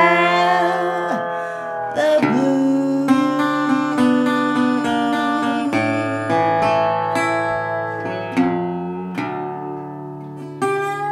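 Blues music: a woman's sung note at the start over a resonator guitar played with a slide, then the guitar goes on through a closing phrase of plucked, sliding notes that slowly fade.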